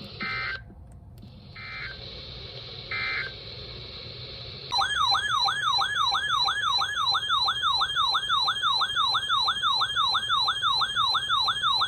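Three short squawks of Emergency Alert System digital data over radio hiss, the end-of-message code closing a weather radio alert. Then, about five seconds in, a loud warbling alert siren starts, sweeping up in pitch about three times a second: the weather radio's alarm for a new severe thunderstorm warning.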